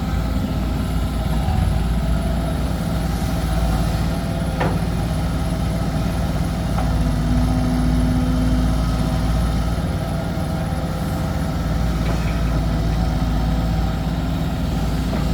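Heavy diesel engine running steadily at an even, low pitch, with one short click about four and a half seconds in.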